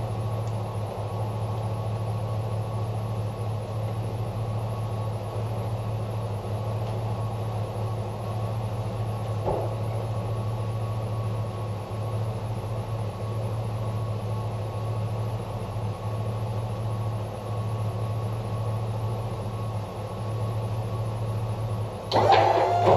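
Pickup truck engine idling steadily. A sudden louder sound breaks in near the end.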